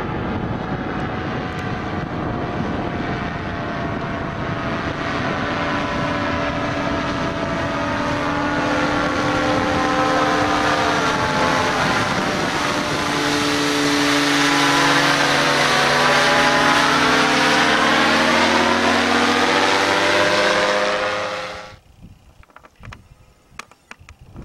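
Powered parachute's propeller engine flying past, growing louder over about fifteen seconds with its pitch sliding slowly down as it comes close. The sound cuts off suddenly about 22 seconds in, leaving faint wind and clicks.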